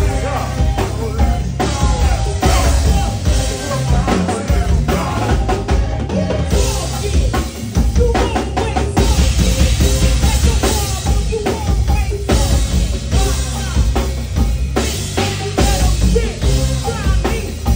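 Live go-go band playing loudly: a driving drum-kit beat with kick and snare over deep bass notes and keyboard.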